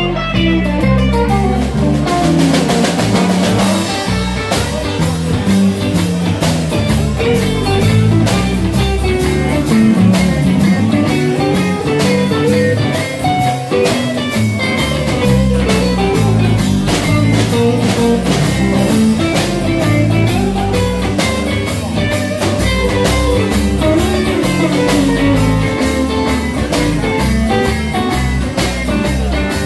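Live blues-rock band playing with electric and acoustic guitars, bass guitar and drum kit, the drums keeping a steady beat. A cymbal wash rings out about two seconds in.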